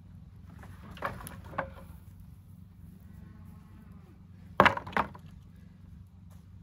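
Wooden deck boards knocking and clattering against each other as they are pulled from a pile of scrap lumber. There are two lighter knocks about a second in, then two loud wooden clacks half a second apart about four and a half seconds in.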